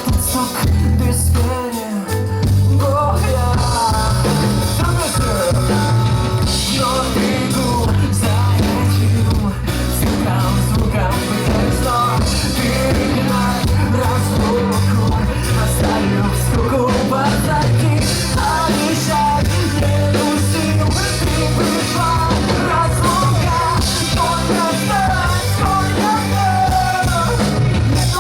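Live rock band playing loudly with a singer's voice over it.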